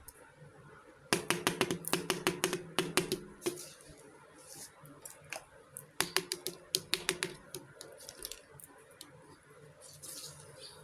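Small hard miniature kitchen toy pieces handled with rapid light clicking, in two runs of several clicks a second with a faint ringing tone under them.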